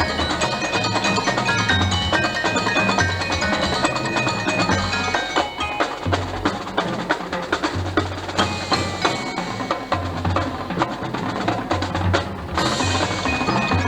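A high school marching band playing its show music, with mallet percussion ringing out quick short notes over low held bass notes.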